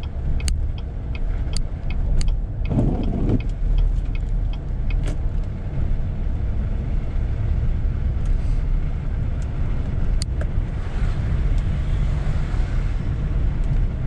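Inside a car driving on a snow-covered road: a steady low rumble of engine and tyre noise, with scattered light ticks.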